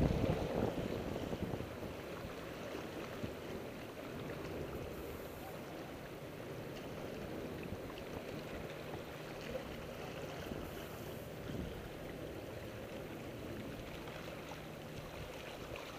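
Wind buffeting the microphone and waves washing against a rocky shoreline: a steady rushing noise, a little louder in the first second or so, with a faint low hum in the second half.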